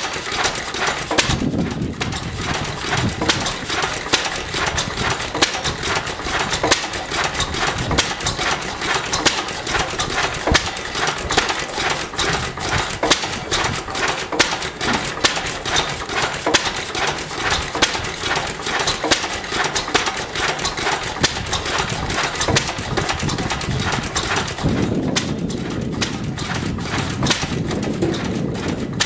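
Vintage Lister stationary engine running, a fast, steady clatter of clicks and knocks. A lower rumble joins near the end.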